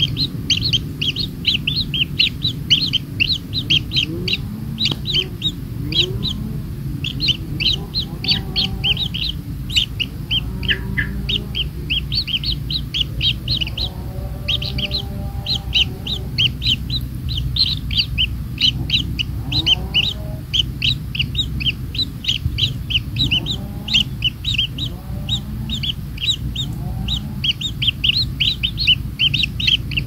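Kingfisher nestlings begging in the nest burrow: rapid, high, nearly continuous chirping as they beg to be fed.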